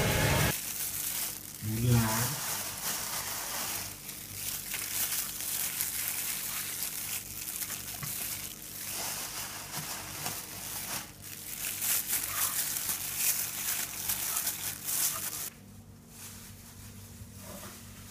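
Crinkling and rustling from handling, over a steady low hum, with a brief voice about two seconds in; it gets quieter near the end.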